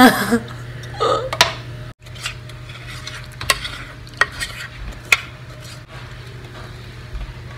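Kitchen utensil sounds: scattered sharp clicks and clinks, spaced a second or so apart, over a steady low hum. A brief laugh-like voice sound comes in the first second and a half.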